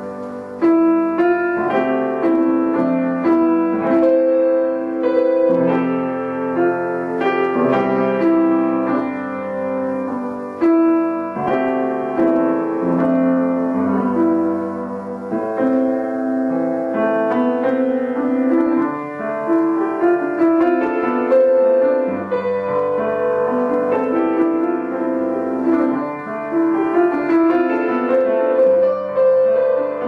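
Piano music, a continuous run of struck notes.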